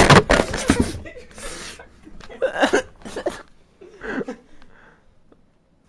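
A person's voice making loud, breathy outbursts for about the first second, then a few shorter vocal sounds, fading to quiet near the end.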